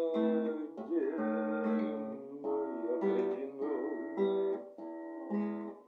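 Acoustic guitar strummed in chords, accompanying a man singing slow, drawn-out words.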